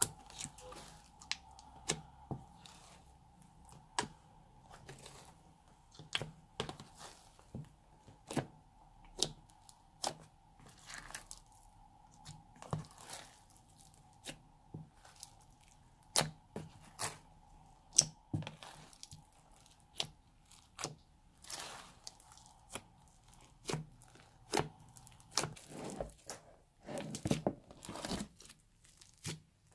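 Sticky slime being squeezed and folded by hand with foam beads mixed through it, giving irregular crackling pops and clicks several times a second.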